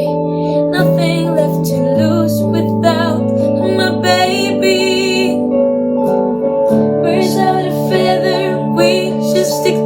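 A woman singing a slow pop ballad with vibrato, accompanied by guitar, with a short break in the vocal line about six seconds in.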